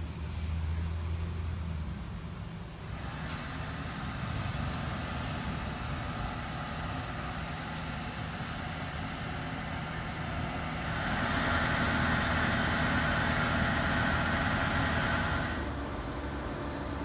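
Construction-site ambience: steady engine noise from heavy vehicles or machinery, growing louder for about four seconds in the second half before settling back.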